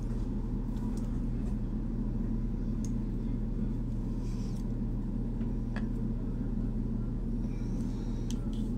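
Steady low room hum with a few faint, light ticks.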